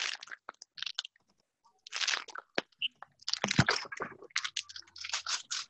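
Fortune cookie being unwrapped and cracked open close to the microphone: crinkling and crunching in irregular short bursts.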